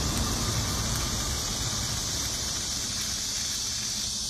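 Electric arc welding on a steel conveyor frame: a steady hiss.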